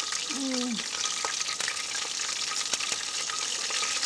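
Wood fire crackling and hissing in a fireplace: a steady high hiss with scattered sharp crackles. A brief low murmur from a voice, falling in pitch, comes about half a second in.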